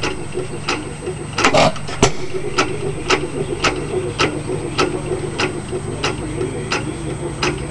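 Ideal vertical hit-and-miss stationary engine running, with a regular sharp click roughly every half second as it turns over. A louder firing stroke comes about a second and a half in.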